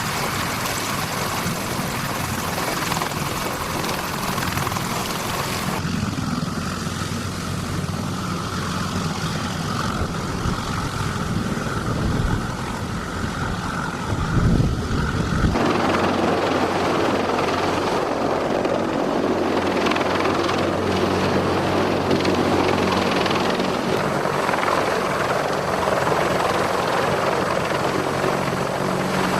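CH-53E Super Stallion helicopter's three turbine engines and rotors running steadily. The sound changes abruptly twice, about six and fifteen seconds in, with a deeper rumble swelling just before the second change.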